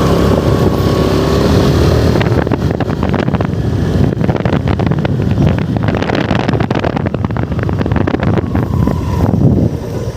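Motorcycle engine running, its steady hum giving way for most of the middle to a rough, crackling stretch with wind buffeting the microphone, then steadying again near the end.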